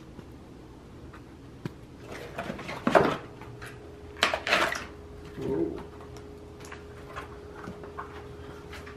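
Handling noises from a rubber bicycle tyre and hand snips: rubbing, rustling and scraping in a few short bursts, with a sharp knock about three seconds in.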